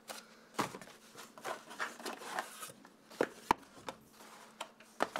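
Cardboard product boxes being handled, lifted out of a shipping carton and set down on a wooden table: a run of rustles, scrapes and light knocks, with one sharp knock about three and a half seconds in.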